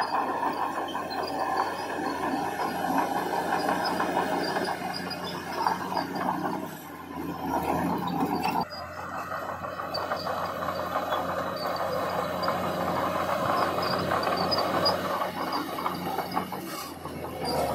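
Heavy earthmoving machinery at work: a diesel engine running steadily under a continuous loud grinding, scraping clatter. The sound changes abruptly about halfway through.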